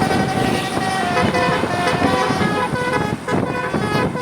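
Basuri 'telolet' musical air horns on a tour bus playing a tune, the notes stepping quickly from one pitch to the next over road noise.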